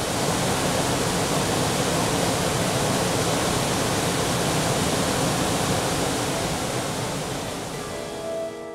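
Waterfall: a steady rush of water falling onto rocks and into a pool. It fades slightly near the end as guitar music comes in.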